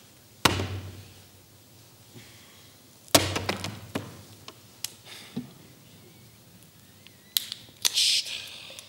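Two sharp knocks on a stage floor, the second followed by a short clatter of small objects. Near the end a drink can is cracked open with a click and a short fizzing hiss.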